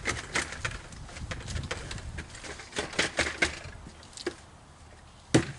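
Clatter and rustle of objects being handled and moved about, a string of small knocks and scrapes, with a sharp loud knock near the end.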